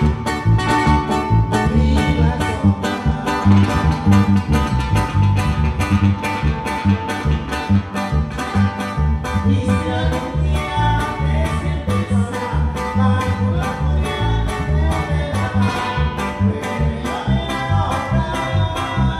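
Regional Mexican dance music from a band: plucked guitars and bass over a steady, pounding dance beat, with singing.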